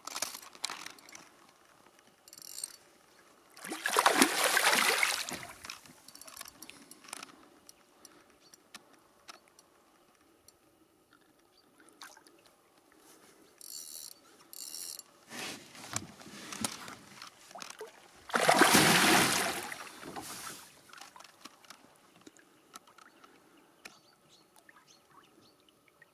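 Hooked pike thrashing and splashing at the surface beside the boat, in two loud bursts of a second or two, about four seconds in and again about fifteen seconds later.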